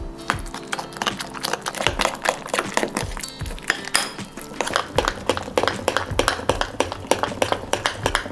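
Background music, with a metal spoon clicking and scraping against a glass bowl in quick, irregular strokes while a thick walnut-and-egg mixture is stirred.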